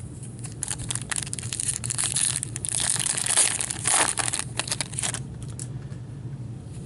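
Plastic wrapper of a hockey card pack being torn open and crumpled by gloved hands: dense crinkling and crackling that starts about half a second in, is loudest around three to four seconds, and dies down about five seconds in.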